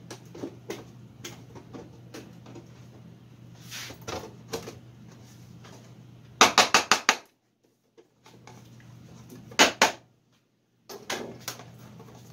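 Wooden drawer parts being knocked and pressed together as the drawer box is dry-fitted: scattered light knocks and clicks, with a quick run of about half a dozen sharp taps about six and a half seconds in and another short run about three seconds later.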